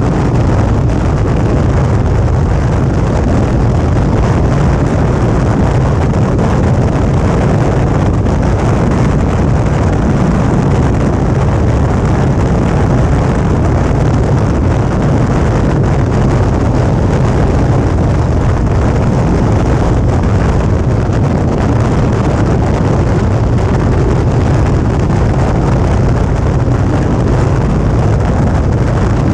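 Steady wind rush on a GoPro's microphone from a Suzuki V-Strom 650 motorcycle riding at a constant speed, with the bike's V-twin engine and road noise running underneath.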